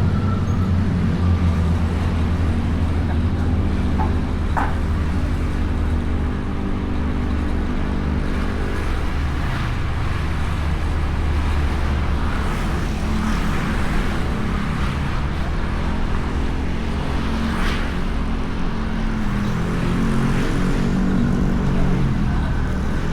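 Honda Beat scooter's single-cylinder four-stroke engine running while riding, its note rising and falling with the throttle, over steady wind and road noise picked up by the bike-mounted camera.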